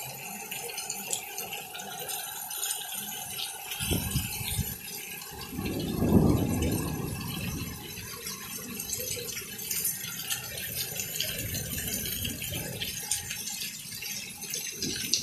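Heavy rain pattering steadily, with a low rumble of thunder building about five and a half seconds in and fading over the next few seconds, following a flash of lightning.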